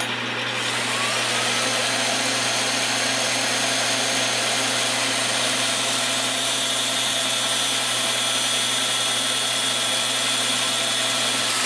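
Knockoff Moto-Tool-style rotary tool, used as a tool post grinder, cutting a hardened steel dowel pin with an abrasive cutoff disc as the pin spins in the lathe: a steady high whine with grinding hiss. The whine rises into pitch about a second in, over a steady low hum from the lathe.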